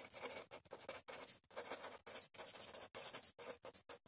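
Felt-tip pen writing on paper: faint, irregular scratching of the tip across the page in short strokes.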